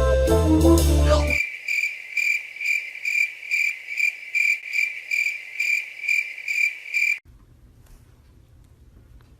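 A cricket chirping in a steady, even series of short, high pulses, about two a second, that starts and stops abruptly. Brass music ends about a second in, and there is only faint room tone near the end.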